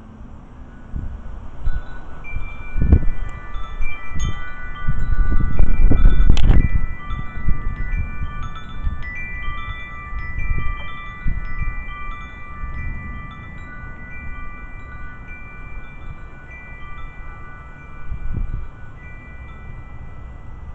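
Wind chimes ringing in gusting storm wind, many overlapping high tones; deep wind gusts rise and fall beneath them, loudest about five to seven seconds in.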